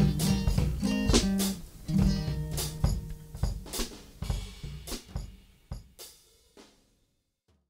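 End of a song played by a band on drums and guitar: full playing at first, then a string of separate drum and chord hits that ring out and fade away.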